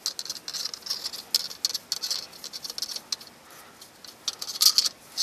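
Hand screwdriver turning a pivot screw with a washer into a wooden saw handle: a run of small, irregular clicks and scratches as the screw is driven in.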